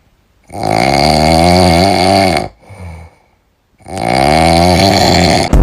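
Cat snoring: two long, loud snores of about two seconds each, with a fainter breath between them.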